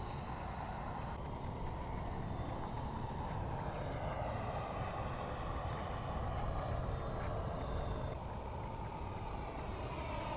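Freewing F-86 Sabre RC jet's 80 mm electric ducted fan whining steadily, fairly faint, as the model flies, with a low wind rumble on the microphone.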